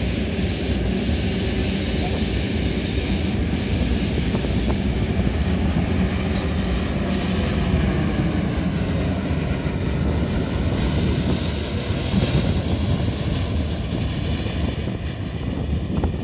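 Iron-ore freight train of loaded ore wagons rolling past, a steady heavy rumble of steel wheels on rail that eases slightly near the end as the last cars go by.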